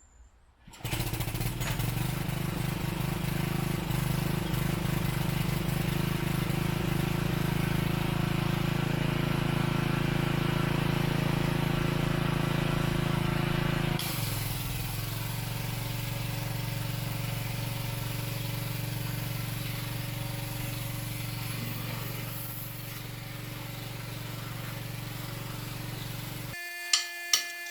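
An engine running steadily. About halfway through its pitch and level drop suddenly, and it cuts off shortly before the end.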